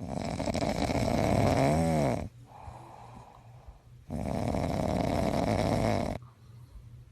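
A pet snoring loudly: two long snores of about two seconds each. The first has a brief squeaky whistle that rises and falls in pitch near its end.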